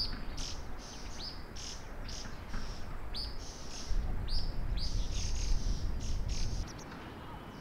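Small birds chirping: a series of short, high chirps that each drop in pitch, about two a second. A low rumble joins in from about four seconds in and stops shortly before the end.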